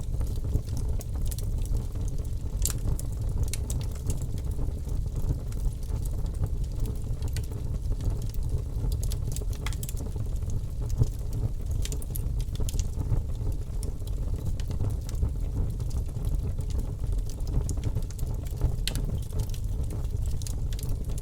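Bonfire burning steadily: a continuous low rumble of flames with frequent sharp crackles and pops from the burning wood.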